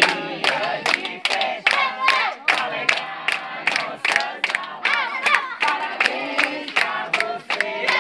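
A party crowd clapping in time, about three claps a second, while many voices sing together.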